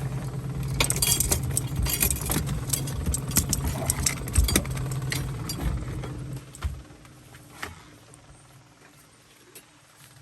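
Boat motor running at trolling speed with a steady low hum, under a rapid clatter of small clinks and rattles of gear being handled for about the first six seconds; after that the clatter stops and the hum fades, leaving it much quieter.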